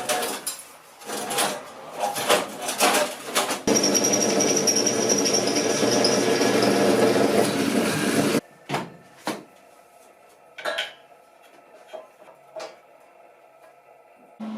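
Knocks and clatter of hard parts being handled, then a small motor or power tool runs steadily for about five seconds and cuts off abruptly, followed by a few light knocks.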